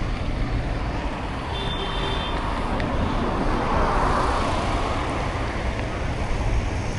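Steady road and traffic noise heard from a moving bicycle, with a low rumble of wind on the microphone and a broad swell of noise about four seconds in.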